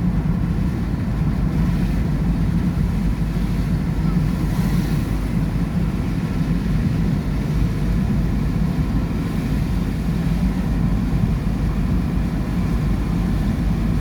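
Wind buffeting the microphone in a rainstorm: a steady low rumble with a faint hiss above it.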